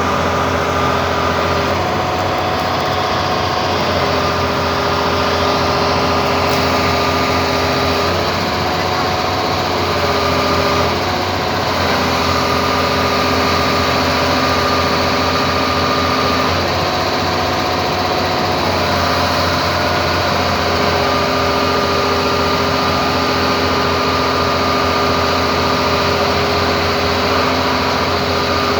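Hitachi excavator's diesel engine running steadily. Its tone shifts slightly every few seconds.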